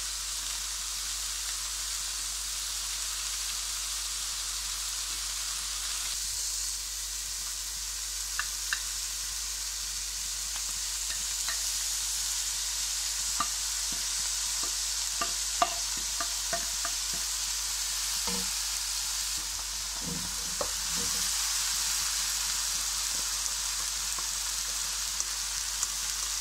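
Chopped onions and spices sizzling steadily in oil in a wok, with a spatula now and then clicking and scraping against the pan as the mixture is stirred.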